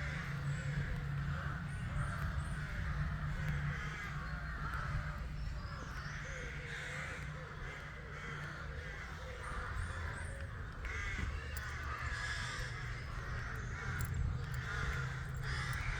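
A nesting colony of corvids, called ravens, cawing continuously: many overlapping harsh calls at once, with a steady low hum underneath.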